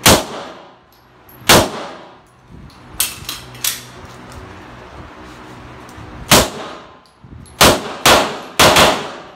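Pistol shots fired in an indoor range, each sharp report ringing off the block walls: two shots about a second and a half apart, then a quick run of five near the end. Three quieter sharp cracks come about three seconds in.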